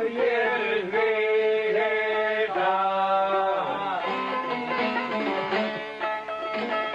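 Albanian folk song: a voice singing long held notes that bend in pitch, over a plucked string instrument.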